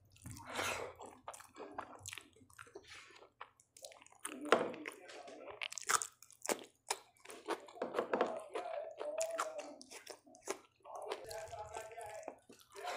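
Close-up chewing and crunching of a person eating, with crisp crunches from bites of raw cucumber slices between mouthfuls of rice and rajma eaten by hand.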